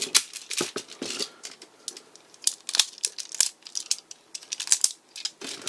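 Hard plastic toy train-robot parts being handled and snapped together: a run of sharp, irregular clicks and small clatters.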